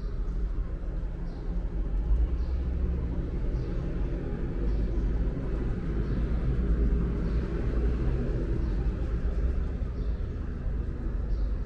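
Steady low rumble and hiss of a cable car cabin riding along its cable, with faint short high chirps about once a second.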